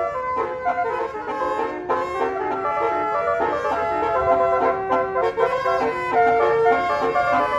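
Basuri multi-tone "telolet" bus horns playing a tune of short, overlapping notes that change every fraction of a second.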